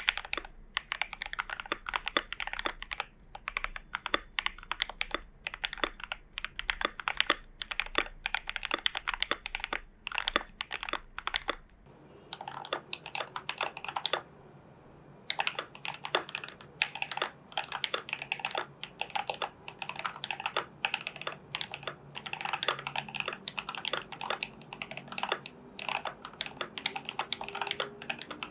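Fast typing on a Glorious GMMK Pro mechanical keyboard with lubed and filmed switches and PBT keycaps: a dense run of key clacks. The sound changes character about twelve seconds in, after which there is a brief pause in the typing.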